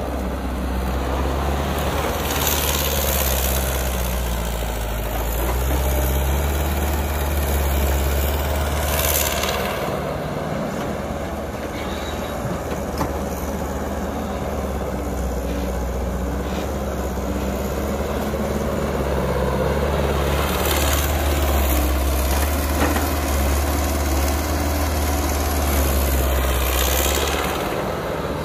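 Caterpillar tracked hydraulic excavator's diesel engine running under load as it digs and swings its bucket, the engine note rising and falling with the work, with a few short louder rushes of noise.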